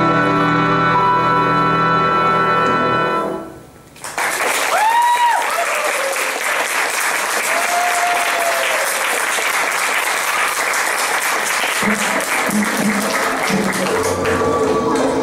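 Stage music ends on held chords and fades out; after a brief hush, an audience bursts into applause and cheering with a few rising-and-falling shouts. About twelve seconds in, the next track starts with a steady beat under the applause.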